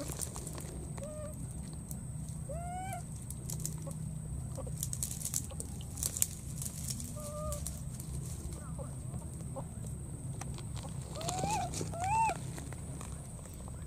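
Baby macaque calling: short, high coos that rise and fall, repeated several times at irregular gaps, with the loudest pair near the end. The calls are the contact calls of a young monkey separated from its companions. A steady low rumble sits underneath.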